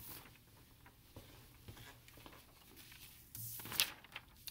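Faint handling noise from the recording camera being moved and set down: soft rustles and light ticks. A short louder rustle comes about three and a half seconds in.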